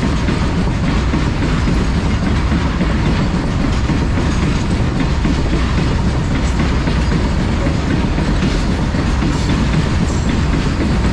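Freight train running by, a steady loud rumble of wagon wheels on the rails with a light clatter.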